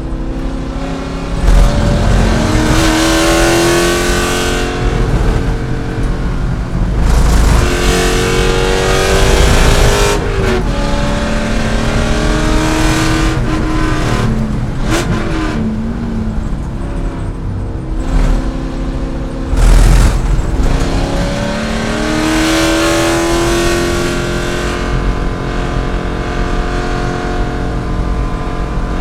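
C5 Corvette's V8 engine at racing speed, its pitch climbing hard in each gear and falling back at the shifts, over and over.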